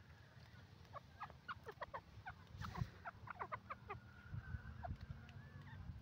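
Grey francolin (teetar) giving a run of soft, short, downward-slurred call notes, several a second, for about three seconds. A low rumble runs underneath, with one thump near the middle.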